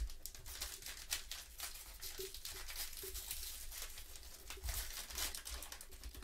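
Plastic wrapper of a trading-card pack crinkling and tearing as gloved hands rip it open, a dense run of crackles throughout.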